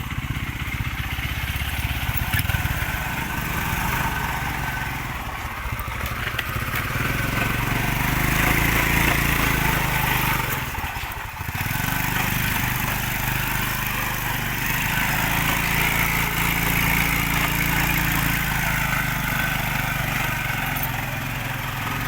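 Motorcycle engine running continuously, its pitch rising a little about eight seconds in, with a brief drop in level about eleven seconds in before it settles back to a steady run.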